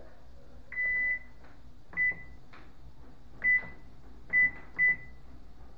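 Electronic appliance beeper sounding five single-pitch beeps, the first held about half a second and the rest short, spaced irregularly like button presses on a control panel.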